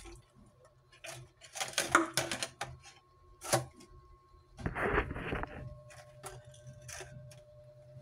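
Scattered light clicks and knocks of plastic bottles and a plastic container being handled beside a sink, with a short rushing burst about five seconds in.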